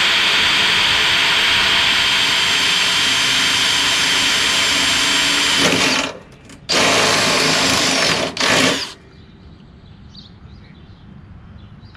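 Cordless drill working at the lawn tractor's steel floor pan. It runs steadily for about six seconds, stops, then gives two shorter bursts and stops for good about nine seconds in.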